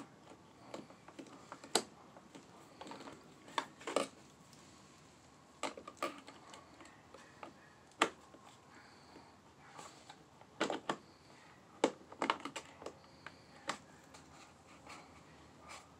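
Irregular light clicks and taps of fingers and small parts on a chainsaw carburetor as the throttle linkage is worked loose by hand, with a quick cluster of clicks about two-thirds of the way through.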